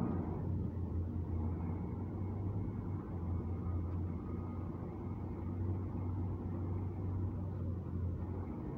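Boom truck's diesel engine running steadily as a low, even hum while it powers the crane's hydraulics through a lift.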